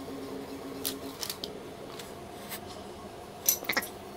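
Small metal hand tools and exhaust hardware being handled: scattered light clicks and clinks, with a louder cluster of sharp metallic clicks about three and a half seconds in. A faint steady hum sits underneath for the first second.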